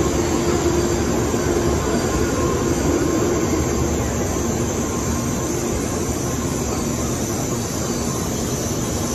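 Nozomi Shinkansen bullet train moving slowly along the platform: a steady rumble of wheels and running gear, with faint steady motor tones over the first few seconds, easing slightly toward the end.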